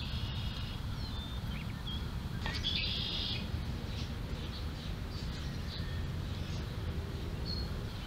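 Small songbirds chirping, with two short high trills, one at the start and one about three seconds in, over a steady low rumble of outdoor background noise.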